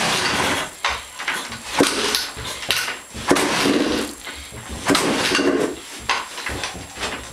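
1991 Honda CR250 two-stroke dirt bike being kicked over again and again without firing. Each kick gives a sharp clank and a brief whoosh of the engine turning over, about one kick every second and a half.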